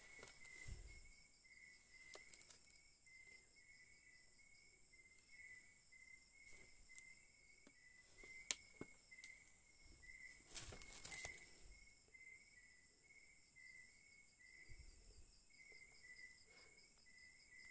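Faint crickets chirping steadily, about two chirps a second. A sharp tap about eight and a half seconds in, and a brief rustle of handling around eleven seconds.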